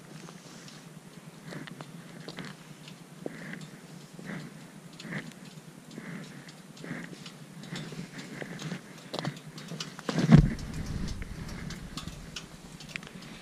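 Footsteps on a gritty roadside at an even walking pace, about one step a second, with small handling clicks from the camera. There is one loud bump about ten seconds in.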